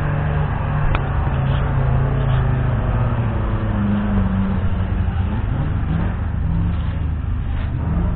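Fordson Thames ET6's 3.6-litre side-valve V8 petrol engine idling, a steady low running note that shifts a little in pitch.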